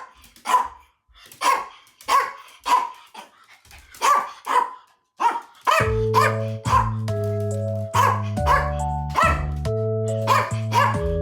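An old dog barking repeatedly, short sharp barks about one or two a second. About six seconds in, background music with a steady low chord and a melody starts up under the barking.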